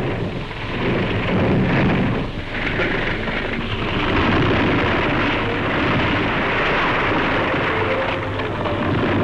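Loud, steady rumbling and rushing noise on an old film soundtrack, with faint music tones coming back near the end.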